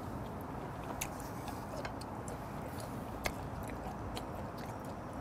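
A man chewing a mouthful of raw fish sashimi, with faint scattered wet mouth clicks over a steady background hiss; one sharper click a little past three seconds in.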